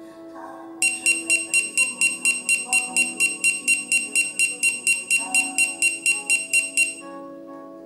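Rapid high-pitched electronic beeping, about five beeps a second, from the anti-loss (find-me) alarm of a USB arc lighter set off from its phone app. It starts about a second in and stops about a second before the end, over background music.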